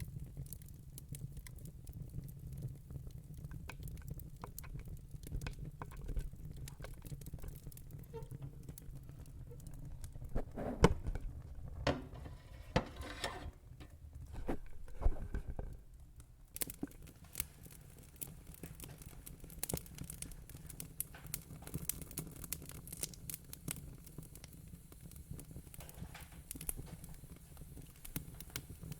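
Wood fire crackling: irregular sharp pops and snaps over a low rumble, with a denser, louder flurry of crackles about ten to sixteen seconds in.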